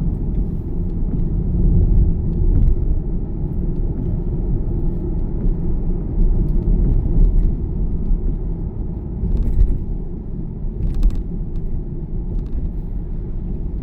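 Car interior noise while driving: a steady low rumble of engine and tyres. Two faint clicks come near the end.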